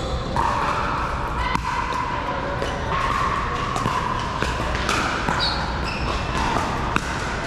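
Pickleball paddles hitting a plastic ball back and forth in a rally: sharp pops at uneven intervals, the loudest a little before the end. Steady background noise with distant voices lies under the hits.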